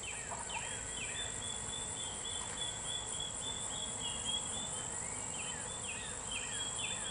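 Steady high-pitched drone of singing insects, with a bird repeating short falling chirps about two a second.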